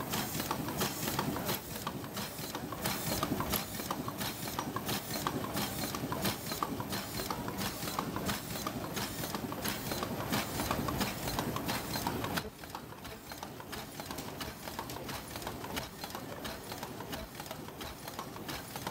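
Paper cup forming machine running, its rotary turret of cup moulds indexing with a rapid, even clacking rhythm over a steady mechanical din. It becomes a little quieter about twelve seconds in.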